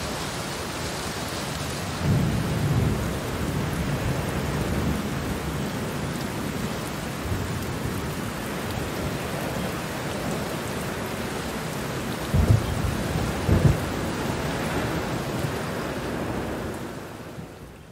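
Steady rain with thunder: a low rumble about two seconds in and two sharper thunder claps a little past the middle. The sound fades down briefly near the end.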